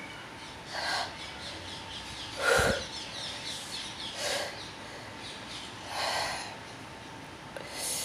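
A man sneezing in a fit of repeated sneezes: four short bursts about two seconds apart, the loudest about two and a half seconds in.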